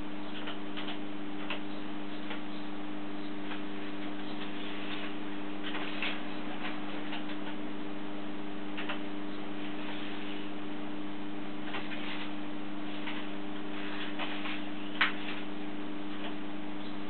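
A steady low electrical hum with scattered, irregular faint ticks and clicks, and one sharper click near the end.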